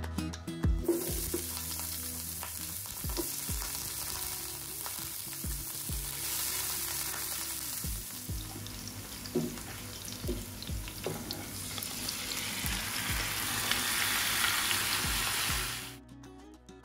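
Sliced onions frying in hot oil in a pan: a steady sizzle that starts about a second in, grows louder near the end and cuts off suddenly. Soft background music plays underneath.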